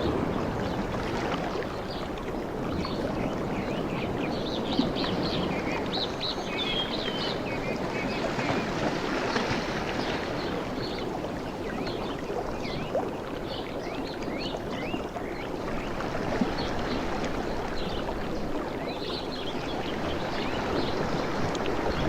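Waves washing on a beach in a steady rushing wash, with many small birds chirping high above it, busiest in the middle and again near the end.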